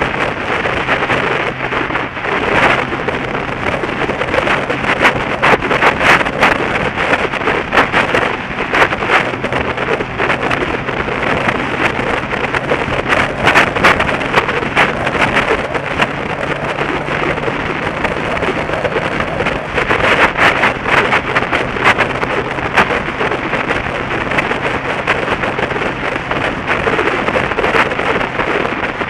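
Wind buffeting a motorcycle camera's microphone at road speed in uneven gusts, over a steady low drone from the engine and tyres.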